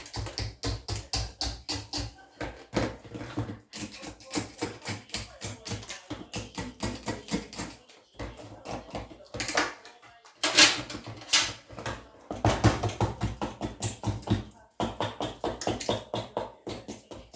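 Rapid repeated knocking and chipping at a thick build-up of ice in a freezer being defrosted, with a few louder cracks partway through. Background music plays over it.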